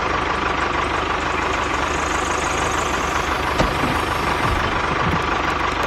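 An engine running steadily at idle, with a fast low pulsing throttle beat and a faint steady whine on top.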